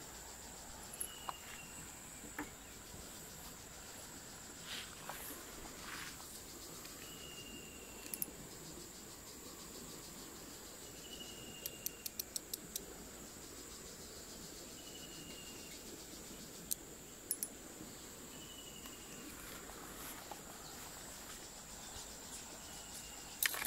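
Steady high-pitched insect drone, with a short falling whistled note repeating about every four seconds. A quick run of sharp clicks comes about halfway through.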